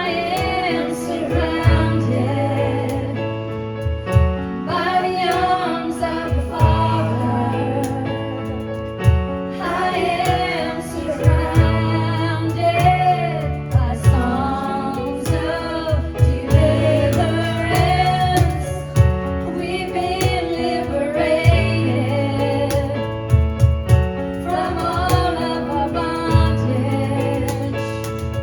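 Live worship music: a band playing with sustained bass notes and regular drum hits, with singing over it.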